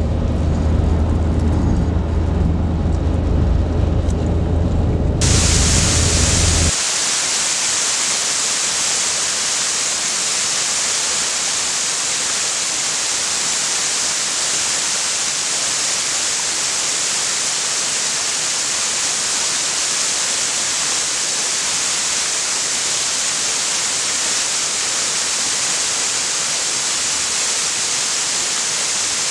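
Low road and engine rumble heard from inside a car driving on a snowy road, which gives way about six seconds in to the steady, even rush of a waterfall pouring into a pool.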